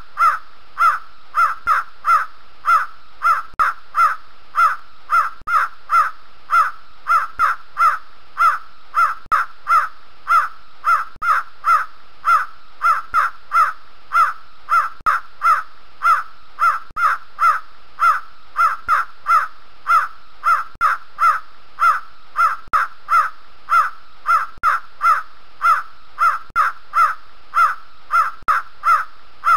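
A partridge (teetar) calling over and over: a harsh note repeated about twice a second in an unbroken, even run.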